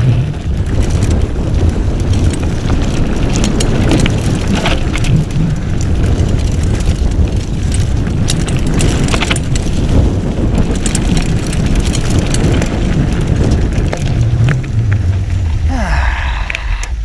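Mountain bike riding over a dirt forest trail: a loud, steady rumble of wind buffeting the action camera's microphone and tyre noise, with frequent clicks and rattles from the bike over bumps. Near the end there is a brief sound that falls in pitch.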